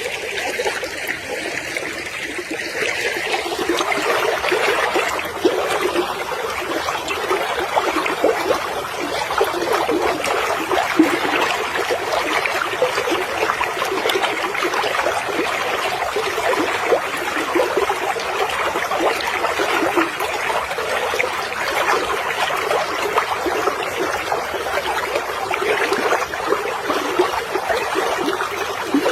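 Running water: a stream trickling steadily.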